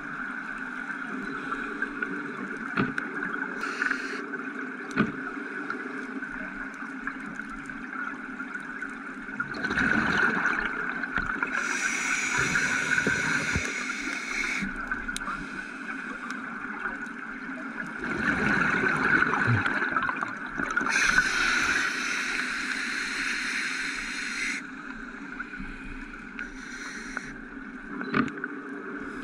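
Scuba diver breathing underwater through a regulator, with surges of exhaled bubbles gurgling every few seconds over a steady watery hiss. A few sharp clicks in between.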